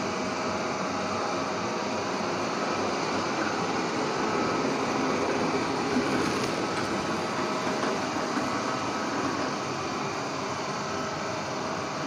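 360 S7 robot vacuum cleaner running steadily as it drives itself back to its charging dock.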